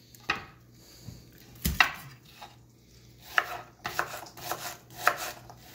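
Kitchen knife slicing a sweet onion on a wooden cutting board: several irregular knife strokes, each ending in a sharp tap as the blade meets the board, the loudest about two seconds in.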